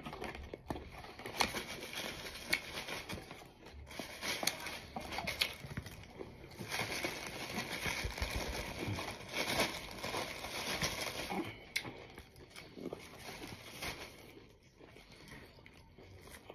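Crinkling and rustling of something being handled at close range, with many light clicks and small knocks, quietening near the end.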